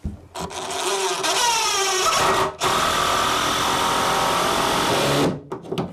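Cordless drill driving a screw into wood framing: the motor runs up with a rising whine for about two seconds, stops briefly, then runs steadily for nearly three more seconds and winds down.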